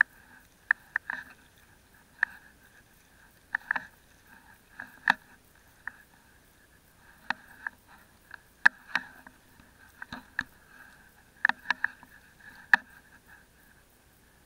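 A wet fishing net and its float line being hauled in by hand over the side of a small boat: irregular sharp clicks and knocks of the line and net against the boat, with a louder cluster of knocks near the end.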